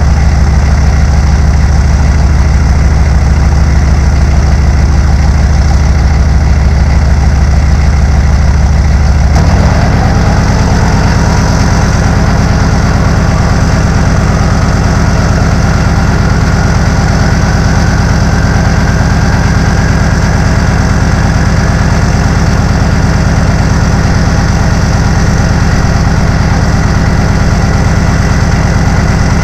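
1996 Chevy K1500's 6.5L turbo diesel idling cold through a straight-piped four-inch exhaust, with a steady diesel clatter. About nine seconds in, the low note of the idle changes and the engine gets slightly quieter, and a faint whine starts that slowly rises in pitch.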